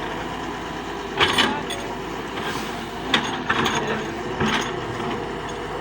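Doosan DX140W wheeled excavator running steadily while it digs, with sharp knocks from the bucket and arm about a second in, near three seconds and around four and a half seconds.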